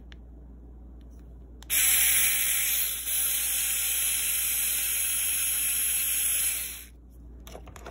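Dextra cordless electric screwdriver's motor spinning free, a high whirring that starts about two seconds in, dips briefly about a second later and runs on until it stops near the end. A few handling clicks follow.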